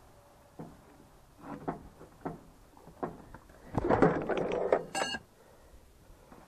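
Handling noises as the hydraulic lift control valve is cleaned and handled by hand: scattered small knocks and clicks, then a dense burst of rustling close to the microphone a little past the middle, ending in a short squeak.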